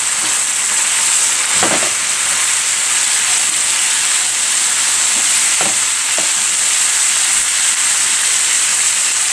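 Diced beetroot sizzling in oil in a frying pan while a wooden spatula stirs it: a steady hiss with a few faint scrapes.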